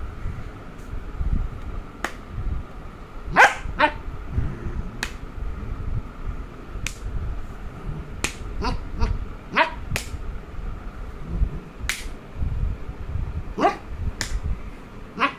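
Beagle puppy making short, high yips and squeaks while playfully mouthing, with sharp clicks scattered throughout and a low rubbing rumble.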